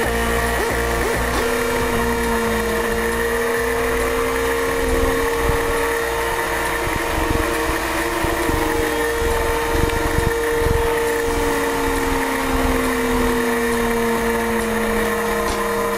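Sport motorcycle engine running at track speed, heard from a camera mounted on the bike, its note slowly rising and falling.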